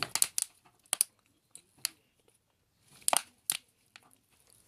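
Handling noise from slime and its plastic bottle: a few short, sharp crackles and crinkles, in clusters about a second apart.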